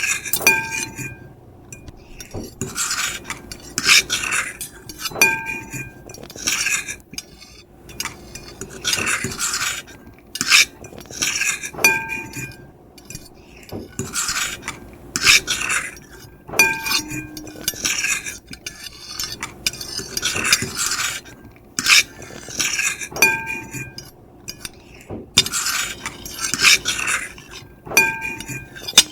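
Metal fork and knife scraping and scratching across a plate in quick, irregular strokes, with the plate giving a short ringing tone every few seconds.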